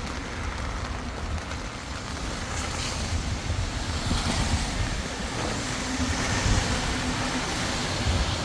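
Steady rain noise, with the low, fluttering rumble of wind buffeting the microphone.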